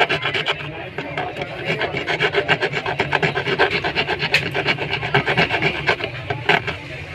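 Quick, rhythmic rasping strokes, several a second, of a brush scrubbing the phone's charging-port board clean.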